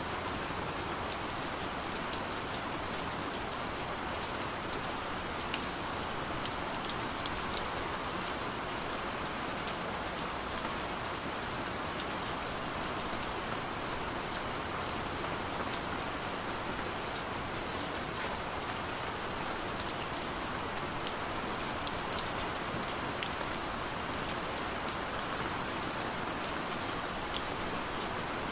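Steady gentle rain falling, an even hiss with scattered sharp drop ticks.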